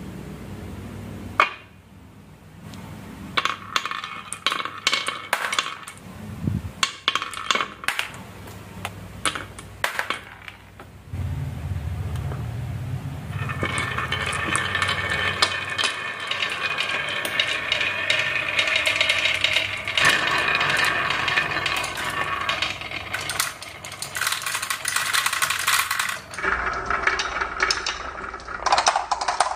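Glass marbles rolling and clicking down a HABA marble run ramp. Scattered clicks at first, then about halfway through many marbles at once make a dense, continuous clatter, which changes character near the end.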